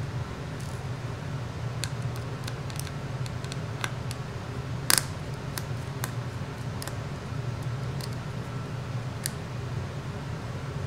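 Small Phillips screwdriver turning out tiny screws in a smartphone's frame: scattered faint clicks and ticks, with one sharper click about five seconds in, over a steady low hum.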